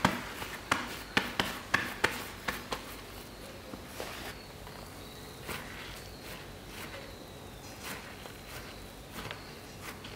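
Rubber-gloved hands slapping and packing mashed soybeans into a meju block: a quick run of sharp pats, about two a second, over the first few seconds, then softer, occasional pats as the block is shaped.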